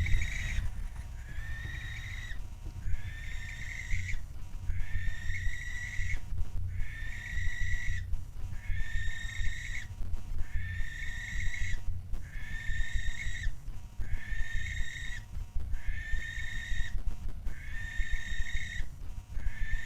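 Barn owl calling over and over, a drawn-out pitched call that rises at its start, repeated about every two seconds, each lasting just over a second. A steady low rumble runs underneath.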